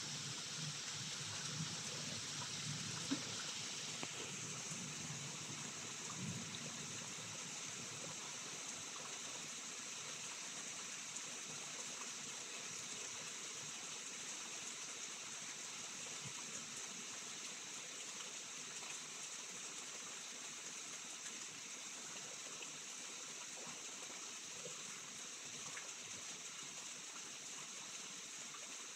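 Steady rain falling at night during a thunderstorm. A low rumble of thunder fades away over the first several seconds.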